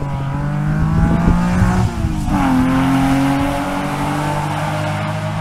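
A historic rally car's engine running hard at speed as it goes past. Its pitch drops sharply about two seconds in, then holds steady.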